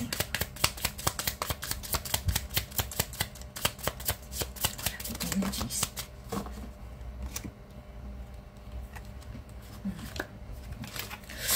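A deck of tarot cards being shuffled by hand: a rapid, even run of card flicks for about the first six seconds, then slower, scattered card clicks and slides.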